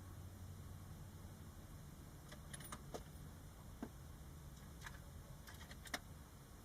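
Faint, light metallic clicks and clinks, about a dozen scattered over a few seconds, over a low steady hum.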